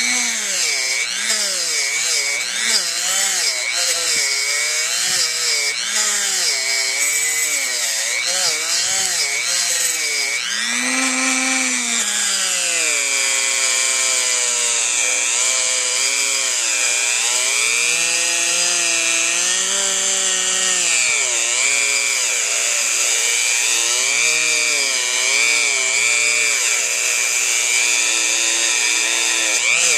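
Handheld rotary tool spinning a brass wire brush wheel against a rusty steel brake-rotor bolt head, scrubbing the rust off. Its motor whine keeps dipping and rising in pitch as the brush is pressed on and eased off. The wavering is quick for the first ten seconds or so, then slower and wider.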